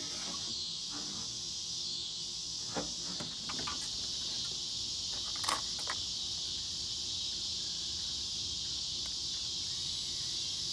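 Steady, high-pitched chorus of insects, with a few short knocks and clicks from handling the sprayer gear on the mower, the loudest about five and a half seconds in.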